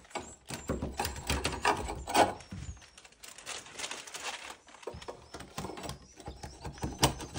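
Irregular scraping and sharp knocks of swiftlet nests being pried off wooden nesting planks, with faint high chirps from swiftlets in the room.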